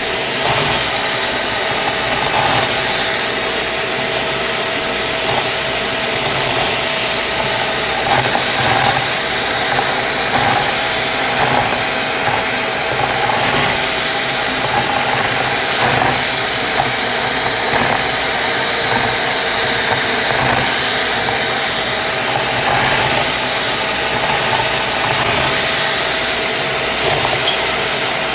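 Shark vacuum cleaner running through its crevice tool with a steady whine, with irregular crunchy crackling as sequins and foil confetti are sucked up the nozzle.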